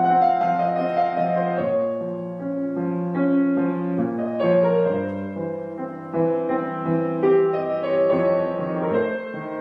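Background piano music, calm and slow, with several notes held together and changing about every half second.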